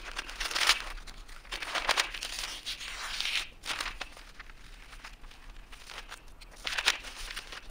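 Scissors cutting a large sheet of paper, with the paper rustling and crinkling as it is lifted and turned, coming in several short bursts.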